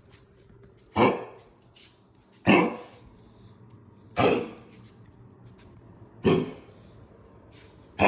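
A dog coughing: five short, loud coughs, one every one and a half to two seconds.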